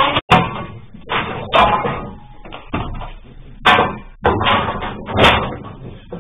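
Metal sliding-door frame profiles clattering and knocking against each other and the floor as they are shifted and laid down: a series of sharp knocks with lighter rattling between.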